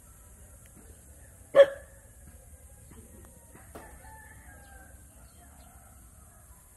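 Chickens in a grove: one short, loud call about a second and a half in, then a rooster crowing faintly in the distance.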